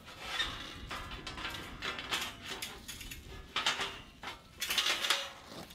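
Steel fire pit side panel scraping and clanking as it is set down into the slots of the steel bottom tray: a run of irregular metal scrapes and knocks, loudest near the end.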